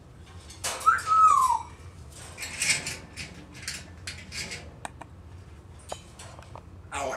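African grey parrot vocalising: a short whistle falling in pitch about a second in, then a string of short harsh calls and a few sharp clicks.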